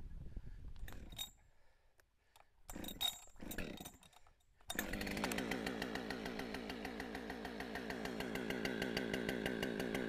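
Husqvarna 572XP two-stroke chainsaw running steadily at speed. It starts suddenly about five seconds in, after a few short scattered knocks.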